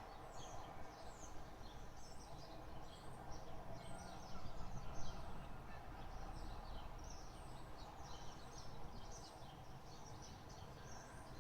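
Small birds chirping and singing, faint, in many quick short notes over a steady low background noise.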